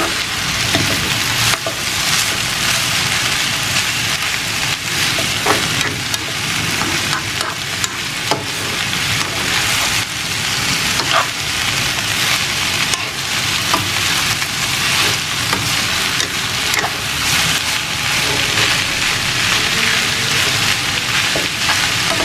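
Shredded chicken and vegetables sizzling in a frying pan as they are stirred and tossed with metal tongs, with scattered clicks and scrapes of the tongs against the pan.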